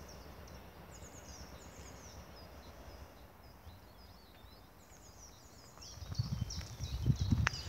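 Small birds chirping in short, high, falling notes over faint outdoor background. From about six seconds in, footsteps thud and crackle on soil and brushwood, louder than the birds, with a sharp snap near the end.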